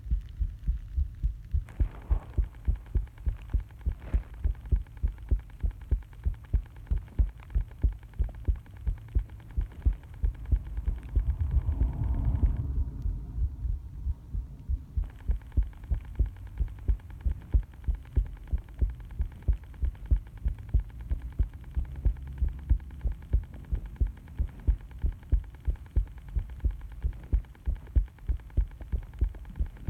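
Human heartbeat recorded close up, beating in a steady rhythm of low thuds. A constant rumbling noise sits under the beats and swells louder for a moment about eleven seconds in.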